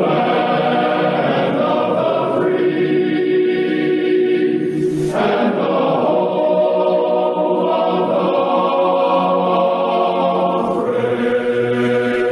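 A choir singing slow, long-held chords that change every few seconds.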